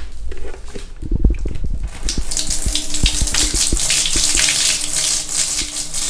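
Wash water pouring out of a tilted pink Moyu portable folding washing machine through its side drain holes and splashing into a bathtub, starting about two seconds in. A few dull bumps come first as the tub is handled.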